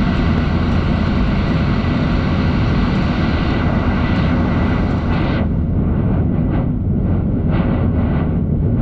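Cabin noise of a Boeing 737-800's CFM56 jet engines at climb thrust: a steady low rumble and rush with a faint steady high whine. About five seconds in, the upper hiss drops away, leaving mostly the low rumble.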